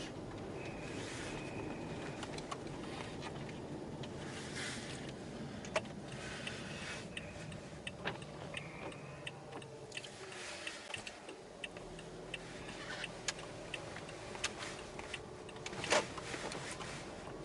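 First-generation Toyota Aqua hybrid being driven through wet snow, heard from inside: a steady low road rumble with scattered irregular clicks and ticks, the loudest near the end, and a few brief squeaks.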